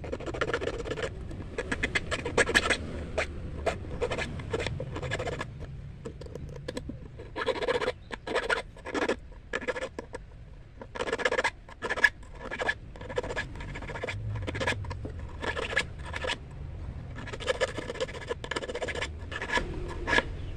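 Small metal hand file rasping on a steel fishing hook, cutting the barb into the hook's point. It goes in runs of quick strokes with short pauses between them.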